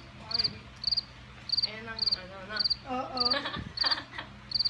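A cricket chirping steadily in the background: a short, high, trilled chirp repeated about every half second, with low voices talking under it.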